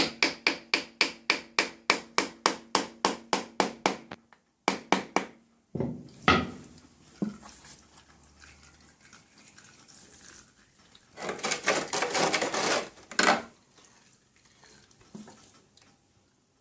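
A rapid run of about four metal taps a second on the sealed cover of a Dnepr motorcycle engine, each one ringing, to break the sealant holding it. A few more knocks follow, then a burst of scraping near the end.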